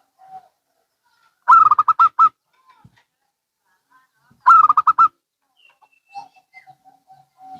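Zebra doves (perkutut) cooing: two loud phrases of quick repeated notes about three seconds apart, and a fainter, lower run of short coos near the end.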